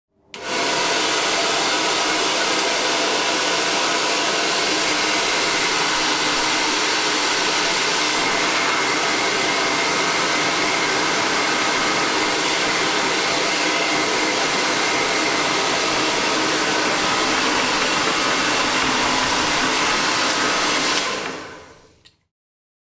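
Hair dryer switched on, blowing steadily: an even rush of air with a faint motor whine. It starts about half a second in and dies away near the end as it is switched off.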